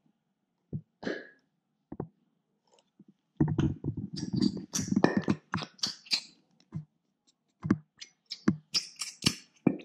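Plastic squeeze bottle of thick blue glitter glue being squeezed into a glass, giving irregular squelches and pops as glue and air are forced out of the nozzle. A few single pops at first, a dense run of them through the middle, then scattered pops again. The glue is slow to come out.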